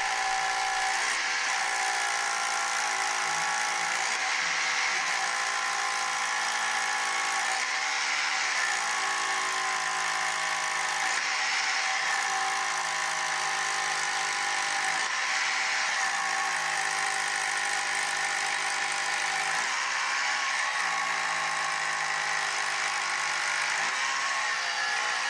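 Cordless rotary hammer drill boring into the rock of a mine-shaft wall, likely to make a hole for a rock bolt. It runs steadily with a buzzing hammer note that dips briefly every few seconds as the bit is leaned on or eased.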